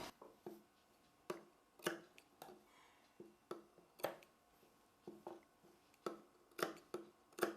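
Faint, irregular clicks and taps from hands handling blouse fabric while folding small tucks in at the neckline curve.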